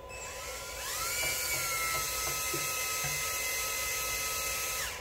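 Electric drill spinning the oil pump of a Suzuki GSX-R 1000 engine through a length of silicon bronze welding wire to prime it. It is a whine that rises in pitch over the first second, holds steady, and stops just before the end, while the pump builds about 60 pounds of oil pressure.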